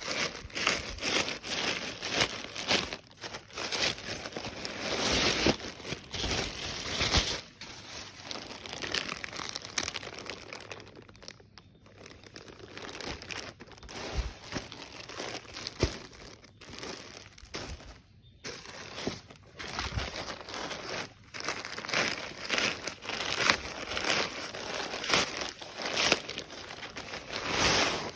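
Packaging crinkling and rustling as it is handled and opened, with dense irregular crackles and small sharp clicks, quieter for a while around the middle.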